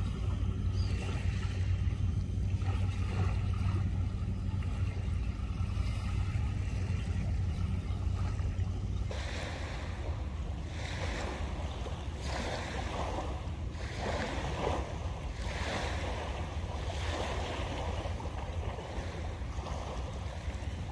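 Wind rumbling on the microphone over the sea, then from about nine seconds in small waves washing onto the sand shore, one wash every second or so.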